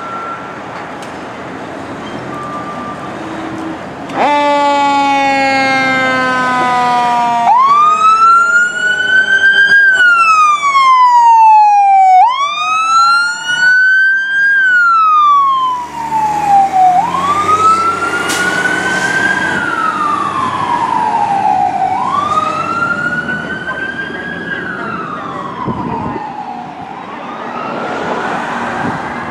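Emergency vehicle warning devices on responding fire apparatus. A horn blast of about three seconds comes first, then a siren wail that rises and falls about every five seconds, growing fainter over the second half as the vehicles drive away.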